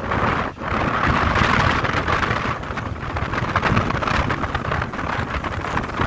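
Freight train rolling past: a steady rumble with many sharp knocks from the wagons, and wind buffeting the microphone.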